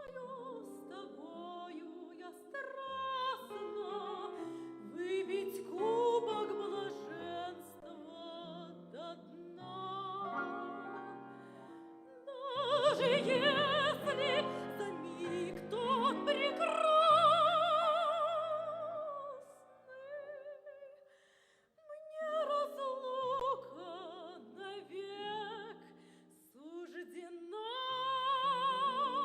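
A Russian romance sung in a classical, operatic style with wide vibrato, with piano accompaniment. The voice swells into long, loud held notes around the middle and again near the end, with a short break between.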